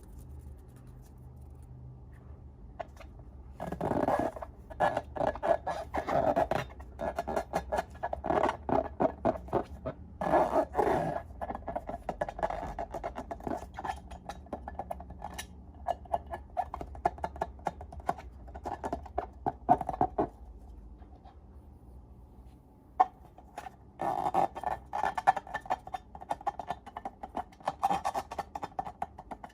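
Slime being squeezed and kneaded by hand, a quick run of wet clicks and crackles that comes in two stretches, a few seconds in and again near the end.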